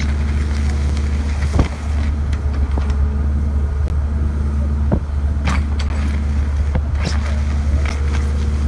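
A steady low, engine-like rumble with a few short knocks.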